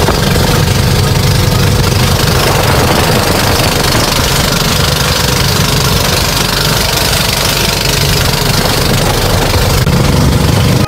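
Engine of a motorized outrigger boat (bangka) running steadily under way, heard on board, with a steady hiss of wind and water rushing past the hull and outriggers.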